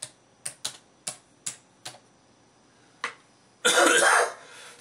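Single key clicks on a computer keyboard, a handful of them spaced out over the first three seconds, then a loud cough about three and a half seconds in.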